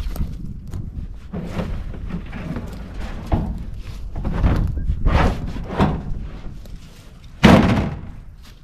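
A cut-down IBC tote, a plastic tank in a metal cage, being tipped and shifted, knocking several times and ending about seven and a half seconds in with a loud thunk as it is set down. Wind rumbles on the microphone underneath.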